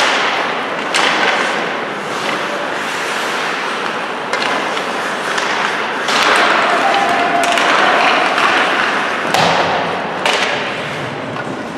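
Ice hockey play heard in an arena: skates scraping on the ice under a steady noise, with five or so sharp knocks of puck and sticks against the boards and ice, the loudest about six and nine seconds in.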